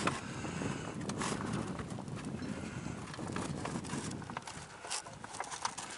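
Sail cloth rustling, with a few irregular soft knocks from the sail and its ropes moving in a light breeze.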